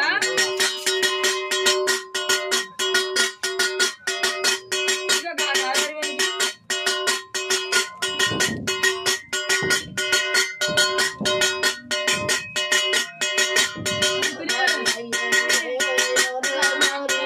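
Background music with a fast, even beat over a held drone note; a wavering melody line takes over in the last few seconds.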